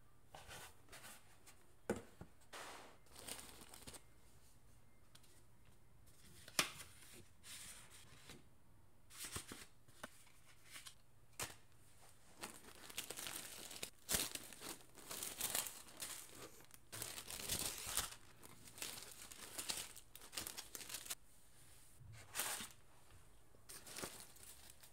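Tissue paper rustling and crinkling as it is unfolded from around the contents of a cardboard gift box, in irregular handling strokes that come thickest in the second half. A few sharp clicks stand out about two seconds in and again near seven seconds.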